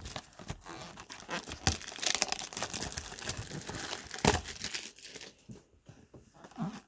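Wrapping crinkling and tearing as a cardboard box of baseball trading cards is opened, with a sharp snap a little after four seconds in; after about five seconds only quieter, scattered handling clicks.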